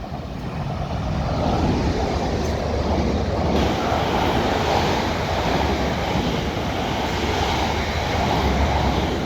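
South Western Railway Class 450 Desiro electric multiple units passing through the station at speed. The rush of wheels on rail and air builds over the first second or so, holds loud and steady, then eases slightly near the end.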